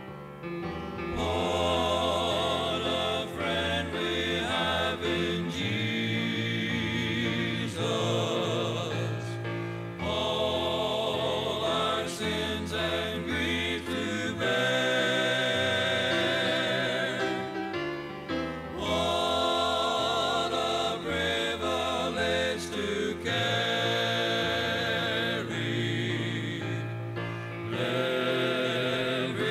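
Gospel vocal quartet singing a hymn in harmony with wavering vibrato, in phrases broken by short breaths every few seconds, played back from a 1983 cassette tape.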